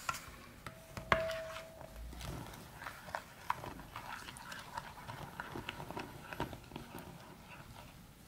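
A spoon knocking and scraping against a ceramic mixing bowl while batter is stirred. One sharp clink about a second in rings briefly, followed by a run of light, irregular taps.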